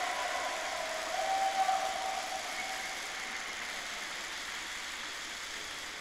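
Ice arena room tone: a steady hiss of ventilation and crowd noise, with a faint held tone about a second in.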